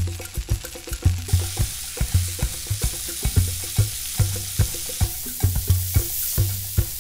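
Marinated pork tenderloin searing in hot oil in a frying pan: a steady sizzle that grows louder and brighter about a second in. Background music with a steady low beat plays over it.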